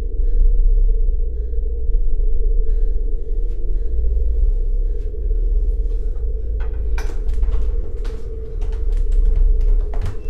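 A low, steady rumble with a constant hum. About seven seconds in, a rapid run of sharp knocks and rattles joins it.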